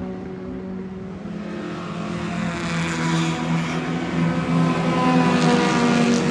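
Engine of a classic Showa-era Honda car running at a steady high pitch and growing louder over the last few seconds as it comes closer.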